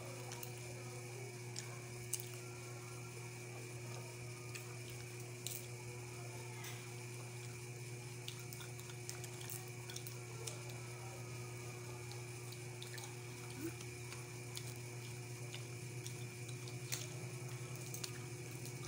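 Scattered small cracks and clicks of cooked peanut shells being split and peeled open by hand, over a steady low electrical hum.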